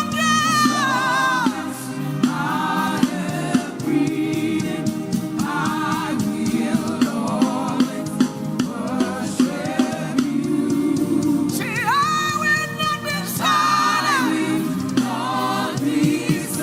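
Gospel worship music: voices singing long, gliding notes over a sustained low backing, with a steady percussive beat.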